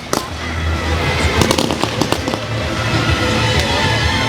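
Fireworks going off: scattered bangs and crackles over a steady rumble, with music playing underneath.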